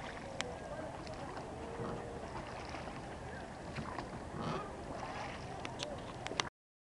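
Open-air ambience aboard a small boat on a river: a steady wash of water noise with faint wavering calls or creaks and a few light knocks. The sound cuts out abruptly near the end.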